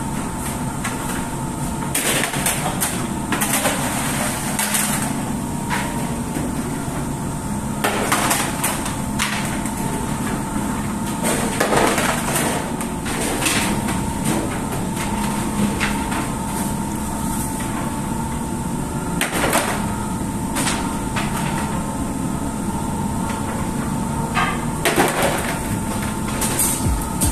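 Steady hum of a bakery's multi-deck bread oven, with irregular scrapes and knocks every few seconds as a long wooden peel slides bread in and out of the oven decks.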